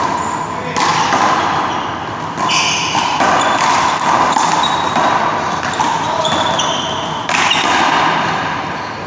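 One-wall handball rally: the small rubber ball slapped by hand and striking the wall and floor again and again, with sneakers squeaking on the court.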